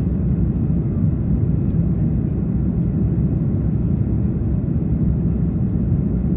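Steady low roar inside the cabin of an Airbus A330-300 climbing after takeoff: engine noise and rushing airflow heard from a window seat over the wing.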